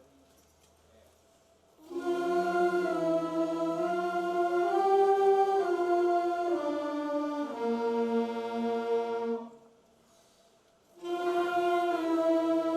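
A high school symphonic band playing slow, held chords that shift every second or so. The first phrase starts about two seconds in and stops after about seven seconds; after a pause of about a second and a half, the next phrase begins.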